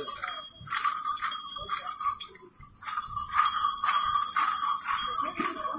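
Small metal bells jingling over and over in an uneven rhythm, with a lasting ringing tone beneath.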